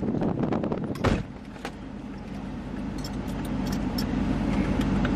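A car door slams shut about a second in, cutting off the wind noise. Then the vehicle's engine runs steadily, heard from inside the cabin and slowly growing louder, with a few light clicks.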